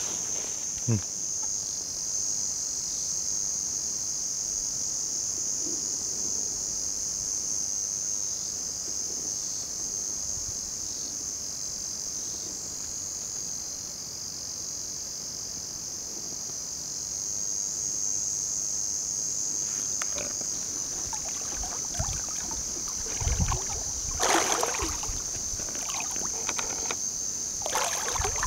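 A steady high-pitched insect chorus drones throughout. In the last several seconds come splashes of water and a few low knocks from the inflatable float tube being moved through the water.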